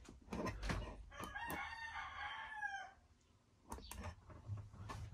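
A rooster crowing once, for about two seconds, with a few short knocks before and after it.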